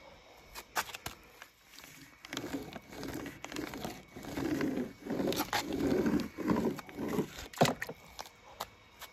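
A die-cast toy jeep pushed by hand through thick green slime across a sheet of paper: a wet, pulsing scraping with paper crinkling, repeated in several pushes. A couple of clicks come about a second in, and a sharp knock near the end is the loudest sound.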